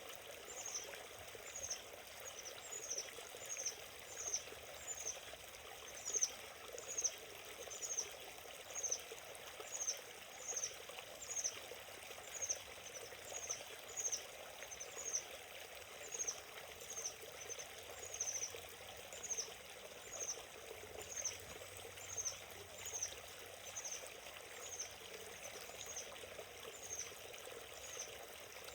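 Small forest stream flowing steadily over stones. Over it, a short high chirp repeats evenly a little more than once a second.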